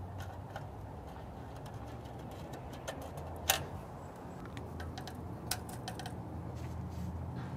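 Scattered small clicks and taps from a tape measure and marker being handled on a pickup's bed rail and toolbox, with one sharper click about three and a half seconds in, over a low steady background hum.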